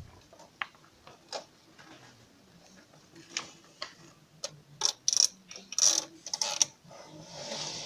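Irregular clicks, taps and scrapes of a plastic mesh net being handled and pushed down into a plastic barrel, most of them between about three and seven seconds in, then a longer rustle near the end.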